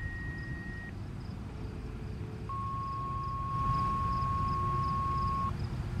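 Fire dispatch radio paging tones: a steady high tone that stops about a second in, then after a short pause a lower steady tone held for about three seconds, over a low background rumble.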